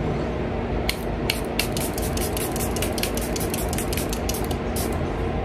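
Fine-mist pump bottle of Charlotte Tilbury Airbrush Flawless Setting Spray sprayed many times in quick succession: short hissing spritzes, about four or five a second, starting about a second in.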